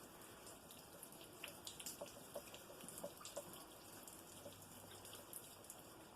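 Near silence, with a few faint, scattered light clicks and taps.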